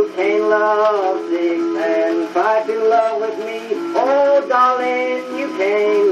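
Old-time string-band music of the 1920s played back from a 78 rpm shellac record: a sliding, pitched melody line over steady accompaniment.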